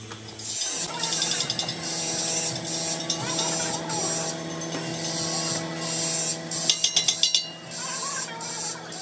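Repeated scraping strokes of a hand tool on the rubber of a tractor-tire patch, with a quick run of ticks about seven seconds in, over a steady low hum.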